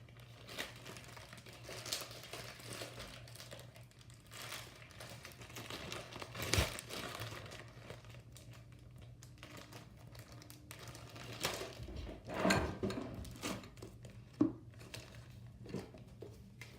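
Hands squishing and kneading slime, pieces of several slimes being worked together: a sticky, irregular crackling full of small clicks and pops, with louder pops about six and a half and twelve and a half seconds in.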